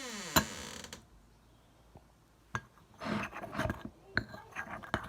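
A creaking, falling squeak in the first second, then scattered clicks and clattering as objects are handled.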